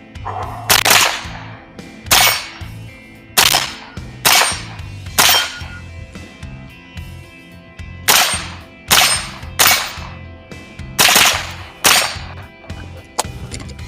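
Smith & Wesson M&P 15-22 semi-automatic rifle firing .22 LR rounds in a timed competition string: about ten sharp shots, roughly one a second, with a pause of about three seconds midway.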